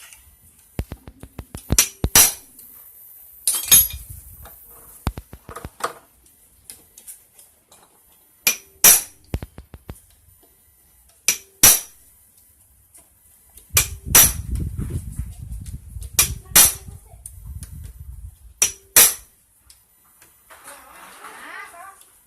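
Hammer blows on metal engine parts, mostly in quick double taps about every two to three seconds, each with a short metallic ring.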